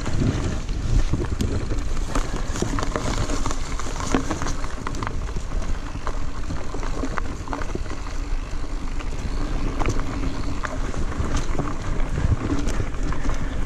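Mountain bike riding fast over a dirt forest singletrack: wind rushing over the microphone and tyre noise on dirt and leaves, with frequent short clicks and rattles from the bike over bumps.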